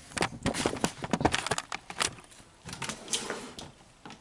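Hard plastic dinosaur toys knocking and clacking as they are shifted and set down on a wooden surface: a quick run of knocks in the first two seconds, then a few more about three seconds in.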